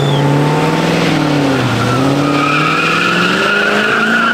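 Dodge Charger revving hard while spinning its rear tires in a burnout and donut. The engine note dips about halfway through and then climbs again, and the tires squeal steadily through the second half.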